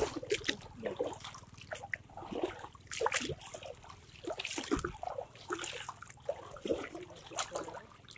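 Water trickling and splashing in an irregular run of small splashes and drips.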